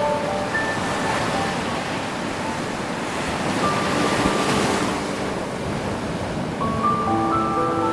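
Ocean surf: waves washing onto a beach, with one wave swelling and breaking about halfway through.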